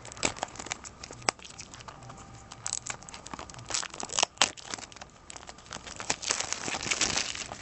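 Clear plastic wrap and tape crinkling and crackling as they are picked at and peeled off a small cardboard Shopkins blind box, with scattered sharp crackles and a longer stretch of crinkling near the end.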